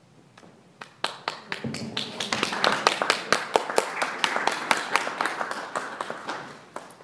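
Congregation applauding: a few scattered claps about a second in, quickly building to steady applause, then thinning out and dying away near the end.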